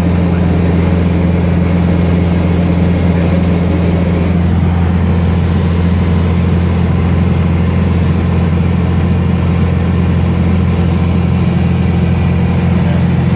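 Light aircraft's piston engine and propeller droning steadily in flight, heard from inside the cockpit as a loud, unchanging low hum.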